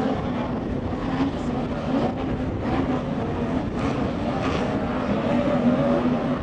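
Racing outboard motors of tunnel boats running flat out as they pass, a steady buzzing drone whose pitch wavers slightly.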